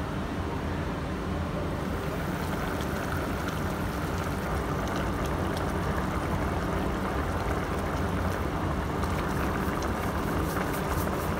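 Chicken tinola broth boiling hard in a pot on a Geepas electric cooker running at 2000 W, a steady low hum under the bubbling. Small crackling pops grow more frequent toward the end.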